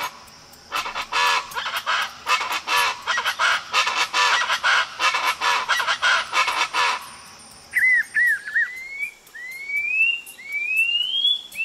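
Chaco chachalacas calling in a loud, harsh, rhythmic chorus. After about seven seconds it gives way to a blue-throated piping guan whistling a series of thin notes, each rising in pitch.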